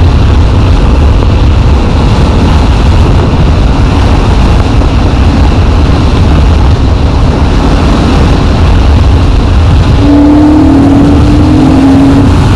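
Yamaha MT-07 parallel-twin motorcycle engine running under way, mostly buried in loud wind rush over the microphone; about ten seconds in, a steady engine note comes through clearly.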